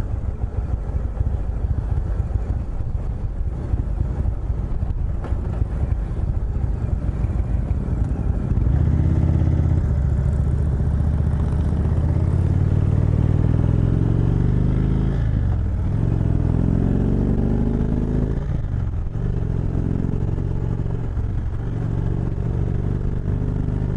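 2018 Indian Chieftain's V-twin engine under way with wind rushing past. About a third of the way in the engine gets louder and accelerates, its pitch climbing, falling back at two gear shifts and climbing again, then settles to a steady cruise.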